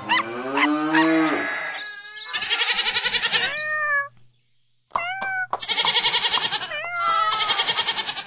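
Cartoon animal calls with the backing music paused: a cow mooing, then a cat meowing several times, with a short silent gap about four seconds in.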